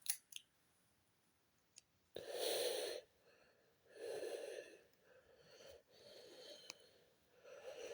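A person breathing out twice close to the microphone, each breath under a second long, with a few faint clicks of handling.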